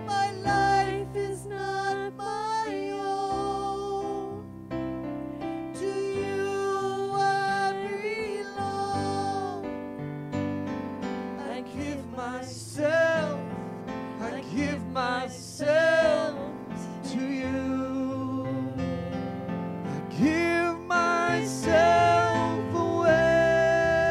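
Slow worship music: a solo voice singing long held notes and quick runs over electric piano or keyboard chords.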